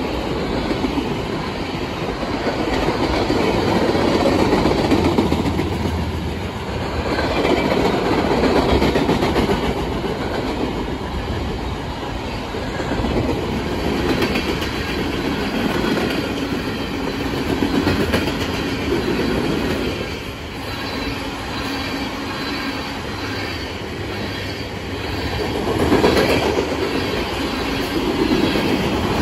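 A freight train's cars (tank car, boxcars, covered hoppers) passing at speed: a steady rumble and rattle of steel wheels on rail, with the clickety-clack of wheels over rail joints, swelling and easing as each car goes by.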